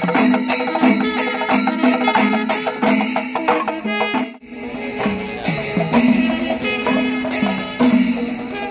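Kerala temple festival percussion ensemble playing: drums and clashing hand cymbals keep a fast, even beat over a steady held tone. The music breaks off briefly about four seconds in, then carries on.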